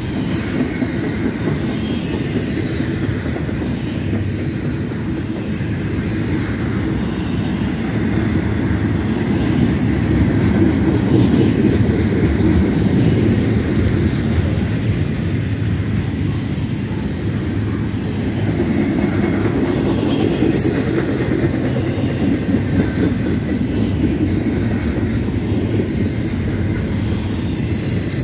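Double-stack intermodal well cars of a freight train rolling past on steel wheels: a steady low rumble and rattle of wheels on rail, a little louder about ten to fifteen seconds in.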